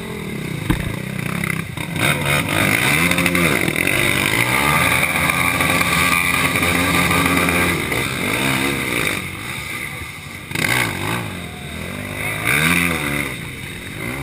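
Racing quad (ATV) engines revving hard and unevenly, the pitch climbing and dropping again and again as the riders work the throttle through deep mud. A single sharp knock sounds about a second in.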